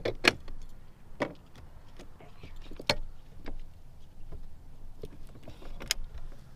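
Electric trolling motor on a bass boat humming low and steady, with a few sharp clicks and knocks from the boat deck and fishing gear.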